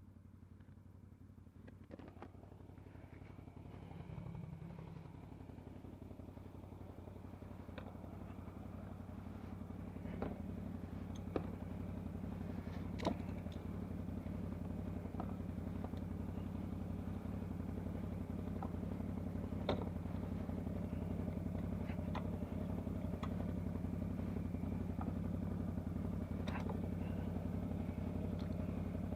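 CFMoto CForce 800 ATV's V-twin engine running steadily, growing gradually louder, with scattered sharp clicks and knocks over it.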